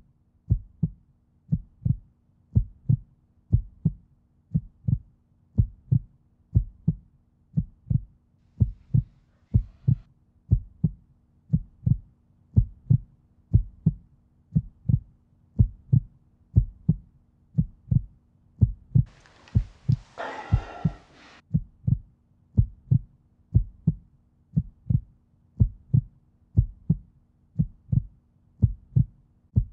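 Heartbeat sound effect: steady low double thumps (lub-dub), a little over one beat a second. About twenty seconds in comes a brief, hissy, rasping sound.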